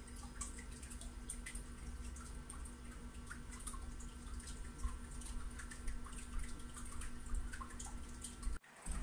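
Steady low hum with faint, irregular small ticks scattered through it, cutting off suddenly near the end.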